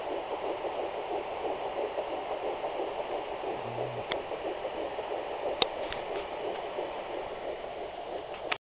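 Sonoline B fetal Doppler's speaker relaying a fetal heartbeat as a pulsing whoosh over static hiss. A few sharp clicks come in the second half, and the sound cuts off abruptly near the end.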